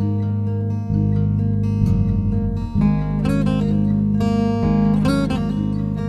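Background music led by acoustic guitar, with notes changing about once a second.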